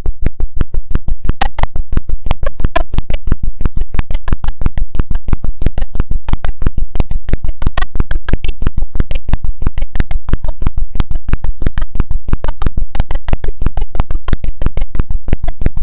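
Loud, regular clicking, about six sharp clicks a second, from a fault in the microphone or sound system, with faint speech nearly buried beneath it.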